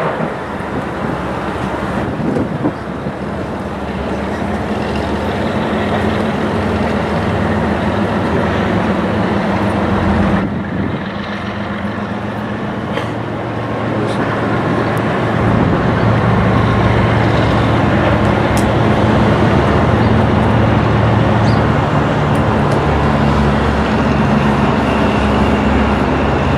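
CSX GE Evolution-series diesel freight locomotives running as they approach, a steady low engine drone that grows louder about halfway through.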